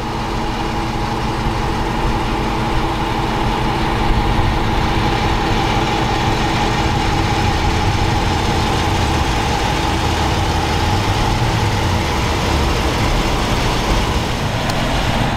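Dodge Challenger's Hemi V8 idling steadily.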